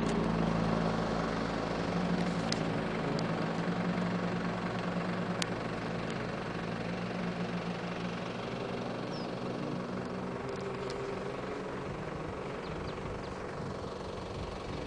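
A vehicle engine running steadily: a low, even hum with a few faint ticks.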